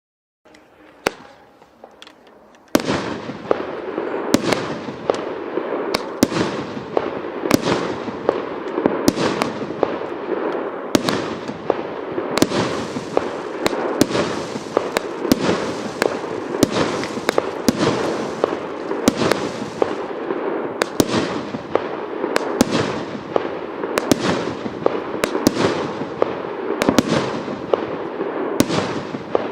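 24-shot firework barrage cake firing: after a couple of seconds of faint fizzing with a single pop, shots go off about once a second, each a sharp bang, over a continuous crackle and fizz from the strobe stars.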